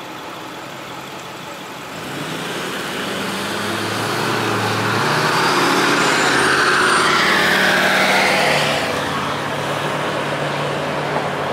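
Road traffic: a motor vehicle's engine and tyres grow louder over a couple of seconds, stay loudest for a few seconds in the middle, then ease off as it passes, over a steady background of traffic.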